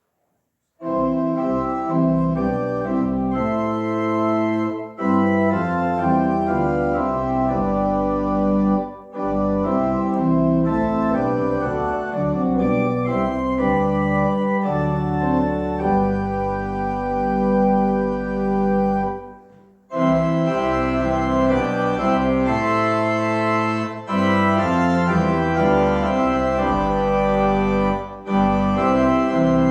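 Church organ playing slow, sustained chords. It begins about a second in, and its phrases are separated by short breaks.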